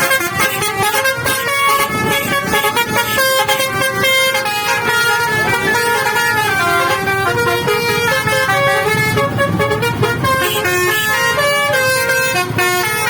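Bus telolet horn, a set of musical air horns, playing a tune of short held notes that step up and down in pitch, with vehicle noise underneath.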